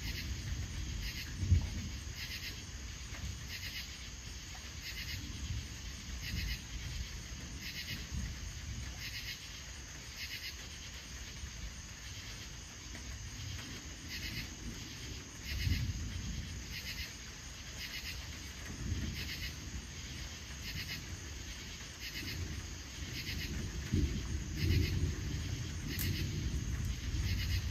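Crickets chirping in a steady rhythm, a little faster than one chirp a second, over low rumbling of distant thunder that swells and fades several times. A sharp low thump about a second and a half in.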